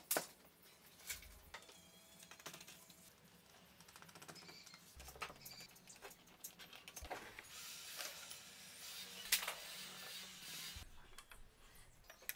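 Faint handling sounds of an aluminium T-track and plywood strip being fitted and set down: light scraping with a few sharp clicks and knocks, the loudest at the very start and about nine seconds in.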